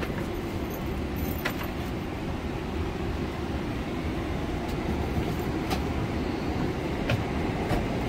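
Steady low rumble of an airliner cabin, the Boeing 777-300ER's ventilation air running, with a few faint clicks and knocks from passengers moving about.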